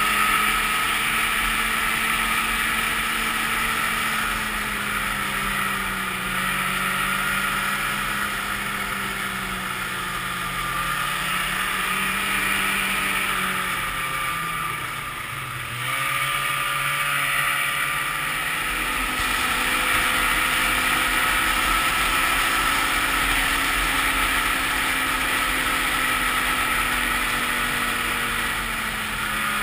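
Ski-Doo Grand Touring snowmobile's two-stroke engine running under way at trail speed, its pitch drifting gently up and down. About halfway through the engine note drops and quiets briefly, then climbs back up.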